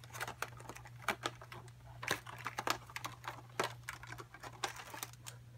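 Clear plastic packaging tray crackling and clicking as hands work a doll out of it: an irregular run of small sharp clicks.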